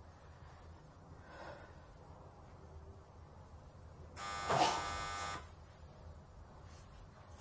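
A doorbell buzzer sounds once, about four seconds in: a steady, harsh buzz lasting just over a second that starts and stops abruptly.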